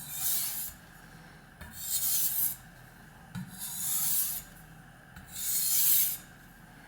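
Kitchen knife blade stroked across a soft, slurry-covered Suehiro SKG-38 water stone: four light, hissing passes about a second long and evenly spaced, each starting with a faint knock. These are finishing passes at a higher angle with only the weight of the blade on it.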